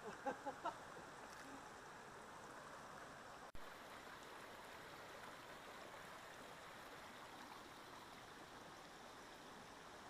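Faint, steady rush of a flowing creek.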